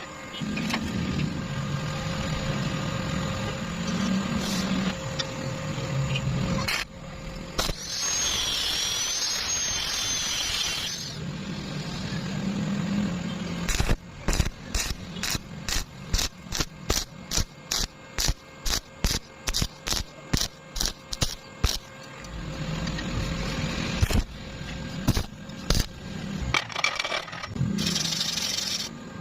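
Metalworking sounds during welding work. A steady crackling noise with a low hum comes first, then a few seconds of loud hiss with a high whine. Near the middle a long run of sharp, regular clicks or taps starts, about three a second.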